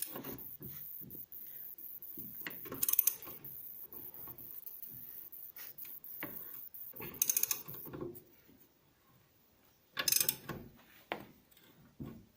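Hand ratchet clicking in three short bursts, working the press that drives a new lower ball joint into a car's wishbone.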